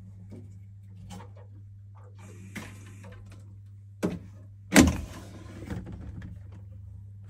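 Steady low hum of water filling a Vaillant combi boiler's heating system, taking it up to pressure. There is a sharp knock about four seconds in and a louder knock just after.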